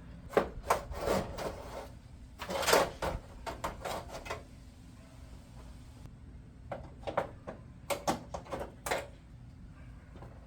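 Irregular bursts of scraping and knocking, in two clusters with a lull between, as a stuck window hinge is worked loose.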